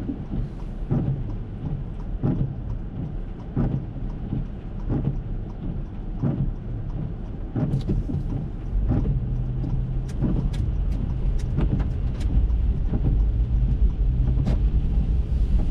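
Rain on an Acura MDX's windshield, heard inside the cabin, with the wipers sweeping about every second and a half. About nine seconds in, the engine picks up and the tyres hiss on the wet road as the car pulls away, with a run of light clicks around the same time.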